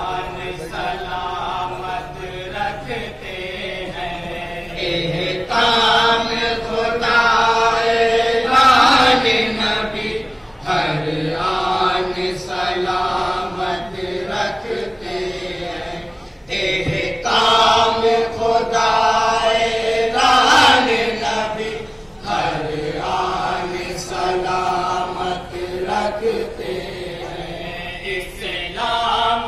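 A group of men chanting a naat together into a microphone, in long held vocal lines that swell louder twice in the middle.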